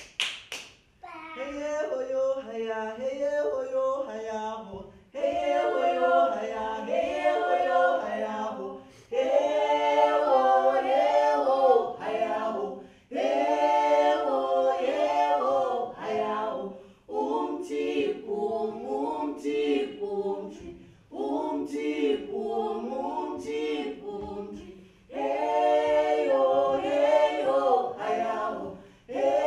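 A small group of voices singing a cappella together, without instruments, in short phrases of about two seconds with brief breaks between them. A few sharp clicks fall about once a second in the middle.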